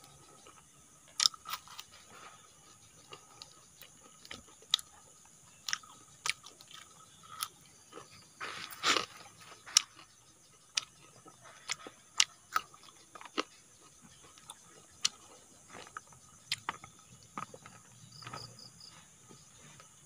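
Close-up chewing and crunching of cooked sugar-palm grubs, with irregular sharp crunches and a louder cluster about nine seconds in.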